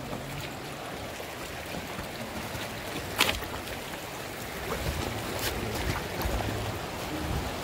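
Steady rushing noise of a mountain stream and wind on the microphone, with footsteps on loose stones. A sharp knock about three seconds in.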